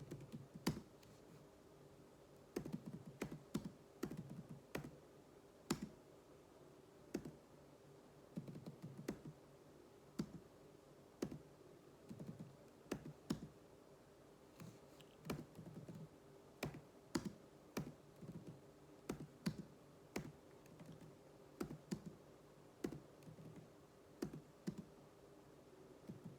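Computer keyboard being typed on in a typing drill: keystrokes come singly and in quick uneven runs with short pauses between, over a faint steady hum.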